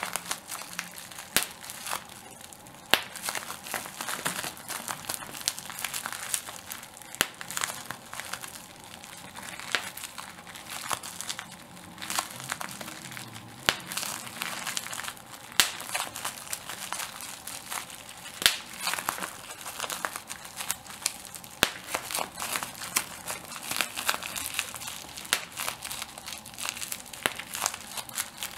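Plastic bubble wrap being crinkled and popped: a steady crinkling of the plastic, broken by many sharp pops at irregular intervals.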